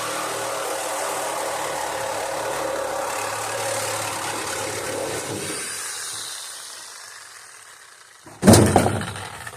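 A motor running steadily, then fading away over a couple of seconds, followed near the end by one sharp, loud metallic clunk.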